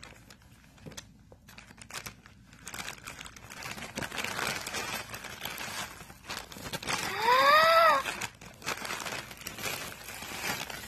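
Thin plastic poly mailer bag crinkling and tearing as it is handled and ripped open by hand. About two-thirds of the way through, a brief squeal rises and falls in pitch and is the loudest sound.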